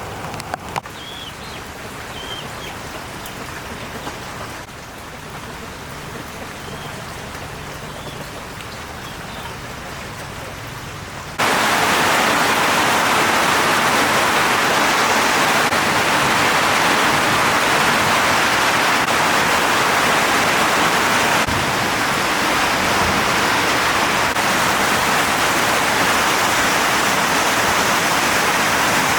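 Rain falling, at first moderate with a few faint chirps, then about a third of the way in it switches abruptly to heavy rain, a loud, dense, steady hiss.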